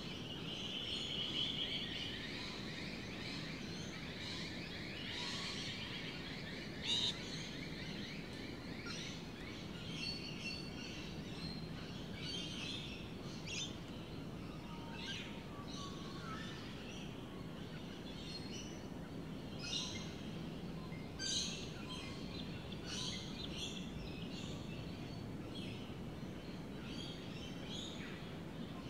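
Several birds chirping and calling with many short scattered calls, including a buzzy trill in the first couple of seconds and one sharper, louder call about seven seconds in, over a steady low background noise.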